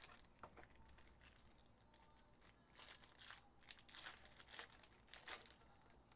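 Faint crinkling and tearing of a foil trading-card pack wrapper being ripped open and peeled back, in irregular bursts that come mostly in the second half.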